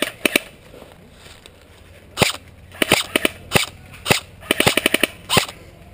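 Airsoft rifles firing sharp single shots: two at the start, then after a pause of about two seconds a run of irregular shots that includes a quick string of about five.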